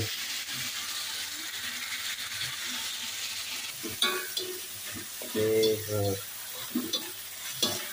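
Mangrove clams (lokan) in soy-sauce gravy sizzling steadily in a metal wok while a slotted spatula stirs and scrapes the pan, with a few sharp clinks about four seconds in and again near the end. A short voice-like sound breaks in about five and a half seconds in.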